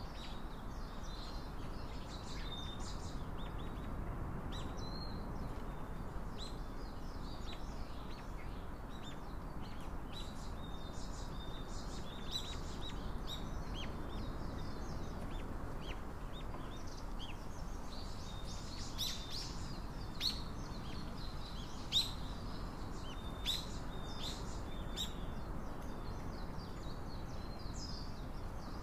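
Small birds chirping and twittering in quick, irregular calls over a steady background hiss. A few brief sharper ticks stand out about twenty seconds in.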